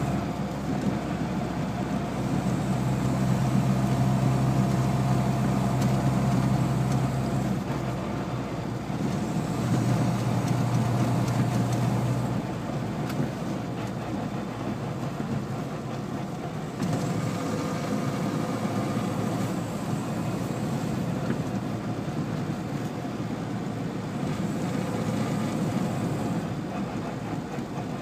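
Car engine and road noise heard from inside a moving car's cabin, a steady drone whose low engine hum shifts a couple of times in the first twelve seconds, then settles into a more even rumble.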